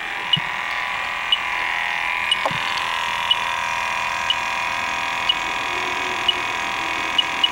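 Fieldpiece SRL8 refrigerant leak detector beeping about once a second over a steady hiss, the idle tick of a detector that senses no refrigerant. Near the end the beeps come closer together as it begins to pick up R410A from a reference leak about an inch from the probe.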